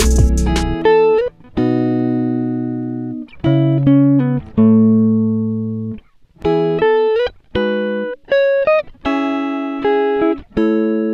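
Background music: an instrumental of ringing notes and chords that fade out in short phrases, with brief gaps between them. A low beat runs into the first second and then drops out.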